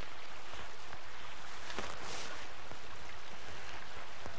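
Steady rush of flowing river water, with a couple of faint clicks about two seconds in.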